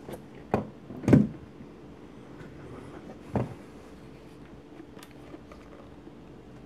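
A wooden-framed, glass-fronted display box being handled, giving three knocks and bumps as it is lifted, tilted and turned over. The loudest knock comes about a second in, with faint ticks later.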